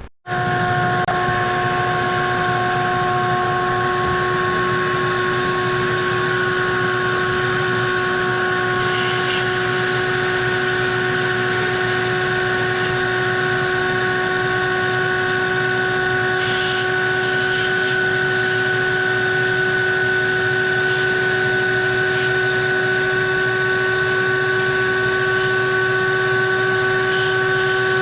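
Abrasive blast cabinet running: a steady hiss of blasting air with a constant motor whine under it.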